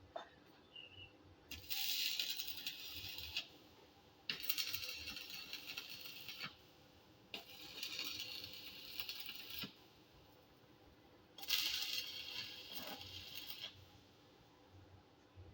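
Electric arc welding crackling in four short runs of about two seconds each, with brief pauses between: steel strip fins being welded onto a hollow square iron roller.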